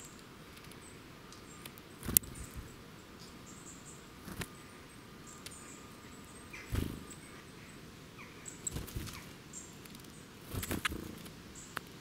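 Small woodland birds, a Eurasian nuthatch and a coal tit, feeding on seed on a gravel path: a few sharp pecks and taps on seed and stones, with brief wing flutters and rustles as they land and leave. Faint, short, high bird calls sound in the background.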